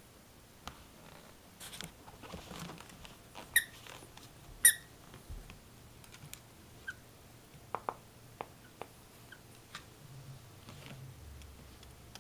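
A squeaky plush hamburger dog toy being chewed by a Norfolk terrier puppy, giving two short, sharp squeaks about three and a half and four and a half seconds in. Scattered light clicks and rustling come before and after.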